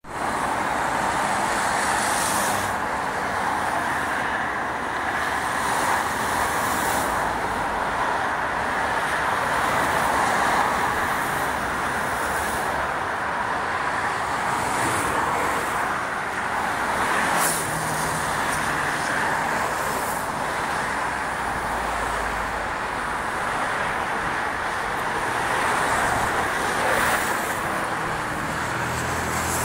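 Steady traffic noise from a busy multi-lane motorway, a continuous rushing of tyres and engines that swells slightly a few times as vehicles pass.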